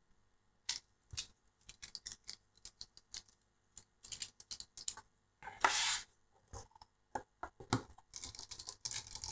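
Hand assembly of a small FPV drone: a scattered series of small clicks and taps from carbon-frame parts, screws and a hex screwdriver, with a short scraping rustle about halfway through. The clicks come thicker near the end.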